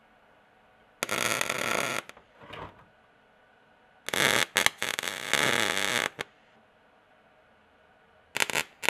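Wire-feed (MIG) welder arc crackling as it tack-welds the joints of a small steel tube frame, in three bursts: about a second long, then about two seconds, then a short one near the end.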